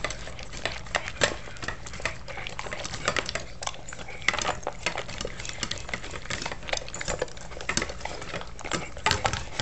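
Bernese Mountain Dog eating steak, gravy and kibble from a stainless steel bowl: sloppy, wet chewing and lapping, with kibble clattering against the steel in quick, irregular clicks. There is one sharper knock near the end.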